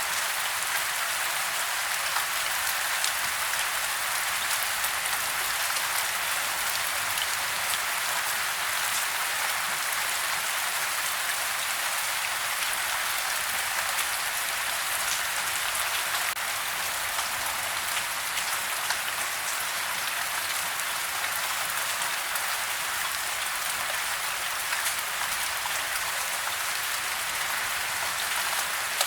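Steady rain falling on a surface, an even hiss with fine patter of individual drops throughout.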